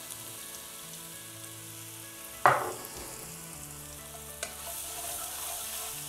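Turmeric and cumin frying in hot ghee with ginger-garlic paste, a steady gentle sizzle, while a wooden spatula stirs the pan. There is one sharp knock about two and a half seconds in and a small click a couple of seconds later.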